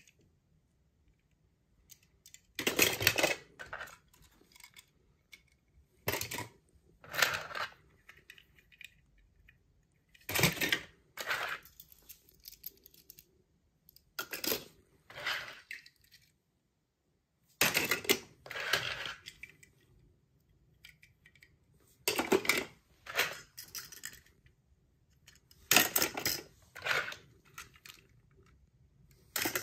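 Small hard toy cars clinking and clattering as they are handled, in short bursts that come mostly in pairs every three to four seconds.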